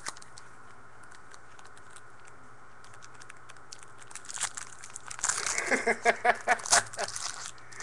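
Light ticking handling noise, then about four seconds in a loud, rapid, irregular crinkling of a plastic wrapper.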